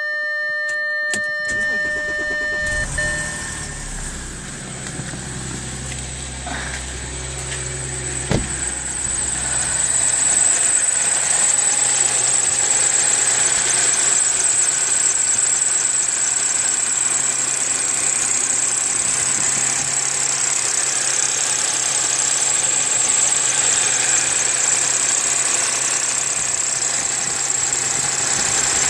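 A steady electronic tone, then the Audi A6 C6's 3.0 TFSI supercharged V6 cranks and catches from cold about two seconds in. It settles into a steady cold-start idle that grows louder about ten seconds in, with a constant high-pitched whine over the engine note.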